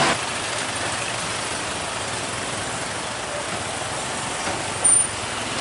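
Steady hum of road traffic with vehicle engines running at idle. A short, high-pitched squeal comes near the end.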